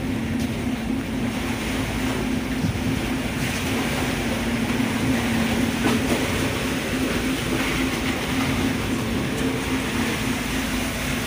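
Fishing boat's engine running steadily: a constant drone with a steady low hum.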